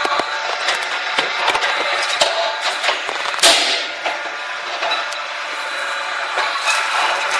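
Rice cake popping machine running: steady clicking and knocking of its press, with one sharp pop and a short falling hiss about three and a half seconds in as a rice cake is puffed and released.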